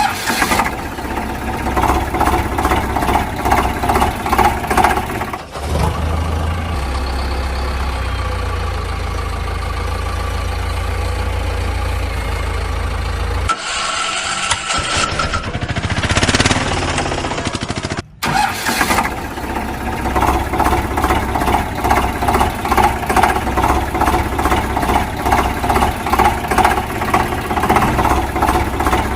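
Vehicle engine sounds in several abruptly joined stretches: a rhythmic chugging idle, a steady low drone from about six to thirteen seconds, a short change in sound, a brief cut-out at about eighteen seconds, then chugging again.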